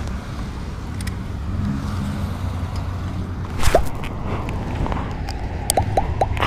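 Triumph Tiger 800 motorcycle's three-cylinder engine idling with a steady low rumble. A sharp knock comes just past halfway, and a few short squeaks sound near the end.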